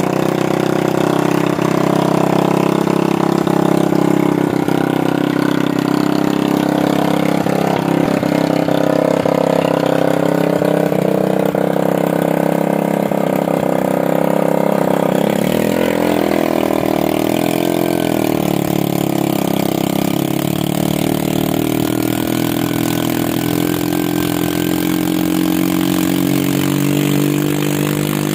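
Old 45 hp black diesel oil engine being started, with a small motorcycle-type starter engine running beside it. Loud and steady; about halfway through the pitch shifts and a deeper tone joins in.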